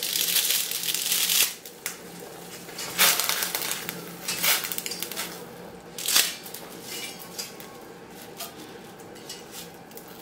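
Dry spaghetti snapping and rustling as a bundle is broken and dropped into a pot of boiling water: a long crackle at the start, then three shorter snaps about a second and a half apart.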